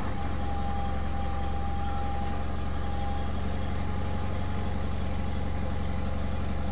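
John Deere garden tractor engine idling steadily just after a cold start, choke pulled out, warming up. A thin steady whine sits over the engine sound and fades about halfway through.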